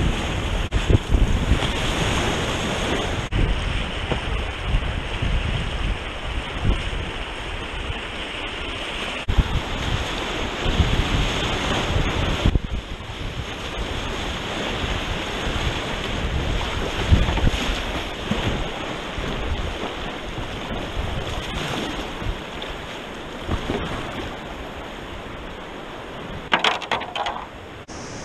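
Whitewater rapids rushing steadily around a kayak, with low rumbling buffets from wind and spray on the action camera's microphone.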